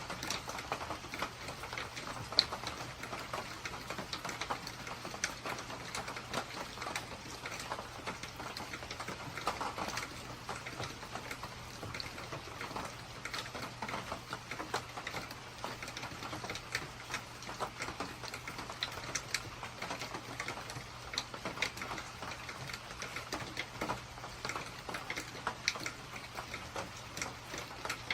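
Heavy rain falling: a dense, irregular ticking and patter of drops, with a faint steady low hum beneath.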